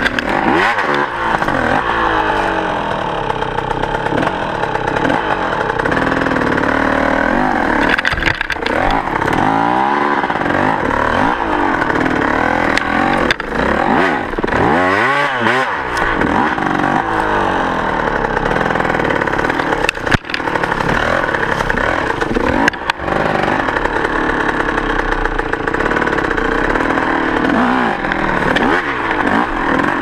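Enduro dirt bike engine revving up and down without a break, its pitch rising and falling with each turn of the throttle, with a few sharp knocks over rough ground.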